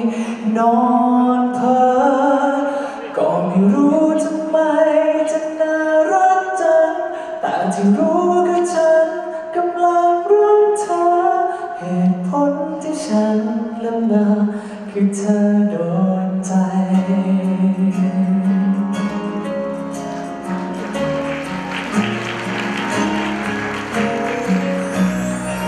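A man singing live into a microphone over instrumental accompaniment; about three-quarters of the way through the voice drops out and the instruments carry on alone.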